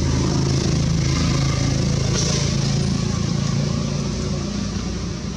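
A motor vehicle's engine running steadily, with a low even hum, fading about four and a half seconds in.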